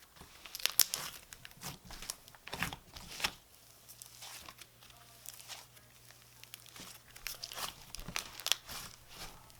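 Slime being stretched and squished by hand, giving irregular soft crackles and pops.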